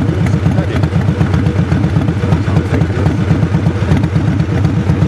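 An engine running steadily, with a fast, even low throb.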